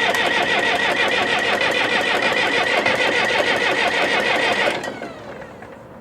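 Starter cranking the 1961 Case 831C tractor's diesel engine over with a steady rhythmic churn, without firing, then stopping about five seconds in as the engine spins down. The injector lines are cracked open to bleed air from the fuel system after a filter change.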